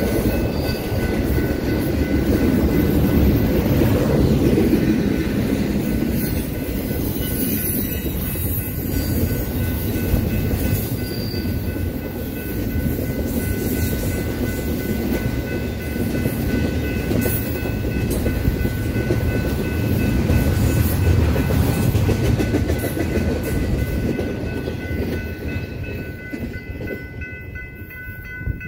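Intermodal freight train's cars rolling past at close range, steel wheels on the rails making a steady rumble and clatter. The sound fades near the end as the last cars go by.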